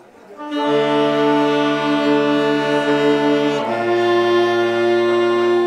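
Saxophone quartet playing slow held chords. The chord comes in about half a second in and moves to a new chord a little past halfway.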